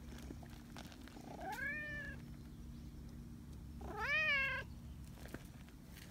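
Brown tabby cat meowing twice, affection-seeking: a longer call about a second in, then a louder, shorter one about four seconds in.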